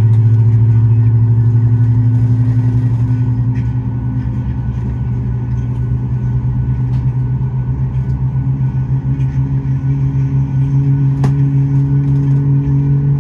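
Boeing 737-8 MAX's CFM LEAP-1B engines heard from inside the cabin while taxiing: a steady low hum with a pulsing beat, its pitch rising slightly over the second half. A faint click sounds near the end.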